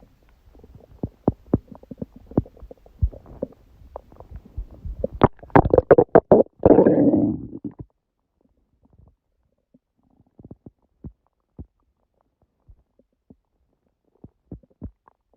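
Human stomach gurgling: a stream of small pops and bubbling that builds to a loud, dense gurgle about five to seven seconds in, then thins to occasional faint pops. It comes some hours after a large udon meal, and the uploader puts it down to the gut reacting to gluten after a long break.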